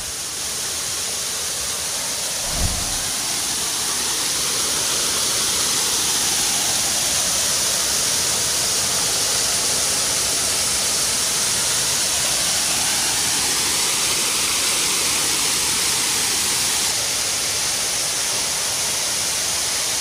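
Steady rush of a waterfall's cascading water, with a brief low thump about two and a half seconds in.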